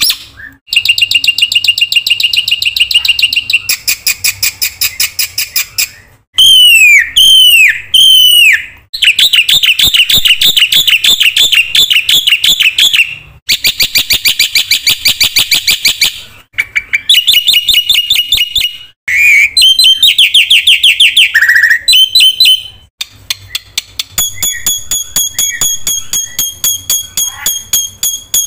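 Black-winged starling (jalak putih) singing loudly in a long, varied song. It runs through rapid rattling trills, then gives three strong downward-slurred whistles about six to eight seconds in, and ends with a run of evenly repeated high notes near the end.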